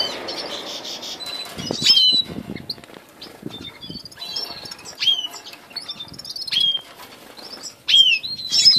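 Caged finches, red siskins among them, giving sharp, high chirps that dip in pitch, every second or so. Wings flutter briefly about two seconds in.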